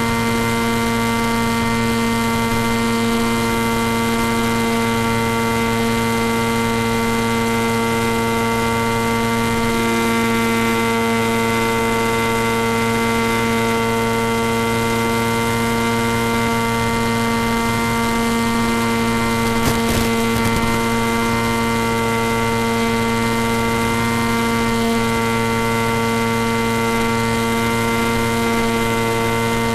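A steady buzz carried on the FPV model plane's onboard audio: one unchanging pitch with many evenly spaced overtones and a hiss above them. There is a brief click about twenty seconds in.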